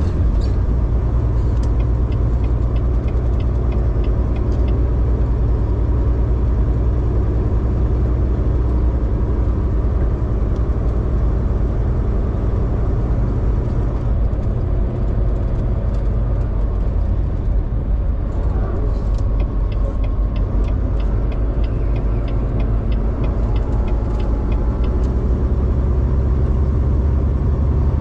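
Volvo semi truck's diesel engine and road noise while driving at a steady pace, a constant low drone.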